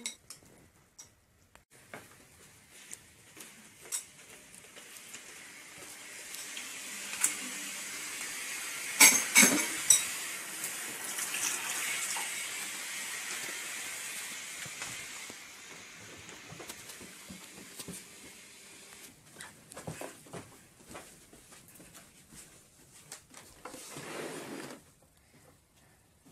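Household clatter of a bowl and spoon, with clinks and knocks, and a stretch of rushing noise in the middle that swells and then fades, with a few sharp clinks at its loudest.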